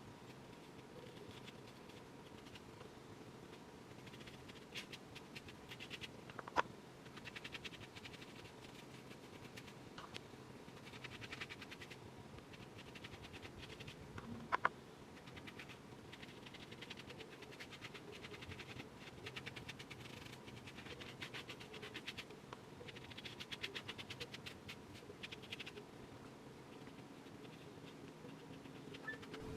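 Brush scratching over wig lace in repeated bursts of quick short strokes, dabbing bleach paste onto the knots, with two sharp clicks along the way.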